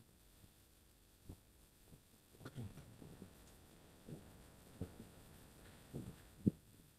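Faint, uneven low thumps about a second apart, with near quiet between: the bumps of a phone camera carried by someone walking.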